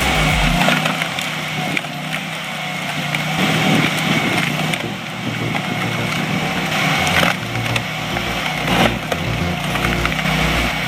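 Log splitter's 24 HP Honda gas engine running steadily while the splitter forces apart a massive log, with several sharp cracks of splitting wood.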